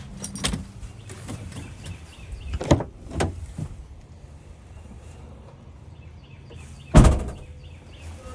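Knocks and clunks of drum hardware and hard equipment cases being loaded into an SUV, with two knocks near the middle and one loud, heavy thump near the end.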